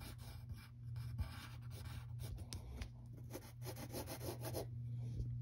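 Pencil scratching on paper in many short strokes, faint, over a steady low hum.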